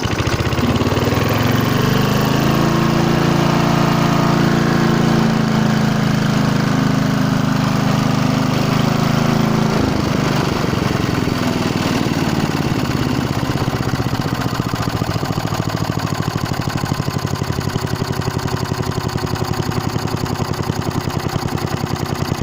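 Old Briggs & Stratton engine on a Hayter Hayterette petrol lawn mower, just started, revving up and racing at high speed. Its revs drop suddenly about ten seconds in and it then runs on at a lower speed. The governor arm is not holding it down: it revs too high and won't tick over on its own.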